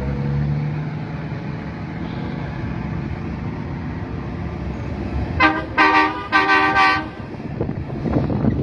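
Heavy truck running with a low steady rumble, then an air horn sounded in three short blasts, the last one the longest.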